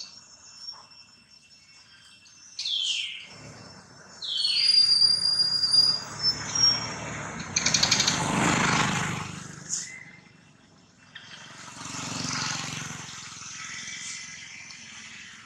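A motorbike passes on the road, its engine and tyre noise swelling to a peak about eight seconds in and fading by ten; a second vehicle passes more faintly a little later. Two short, high falling chirps come just before the first pass.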